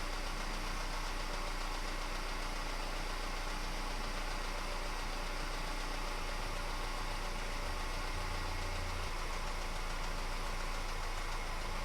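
2009 Ford Fusion's engine idling steadily.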